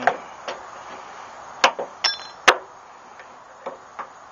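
Pliers, snap ring and metal washer clicking and clinking on the tailgate strap's bracket pin as the retaining ring is worked into place. About seven sharp clicks at uneven intervals, one about two seconds in with a brief metallic ring.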